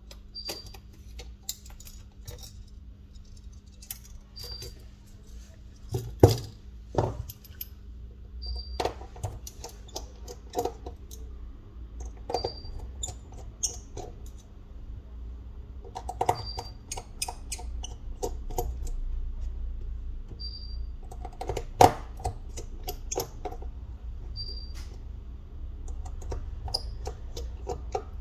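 Small repair tools clicking and tapping against the parts of a Huawei Y6 2019 smartphone during disassembly: irregular light clicks, with sharper knocks about six seconds and twenty-two seconds in. A short, faint high beep recurs every few seconds over a low steady hum.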